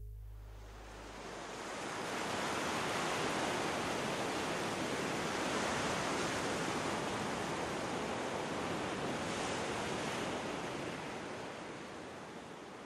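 Sea surf breaking on a sandy beach: a steady rush of waves that swells in about a second in and fades slowly toward the end. The last low note of the song dies away at the very start.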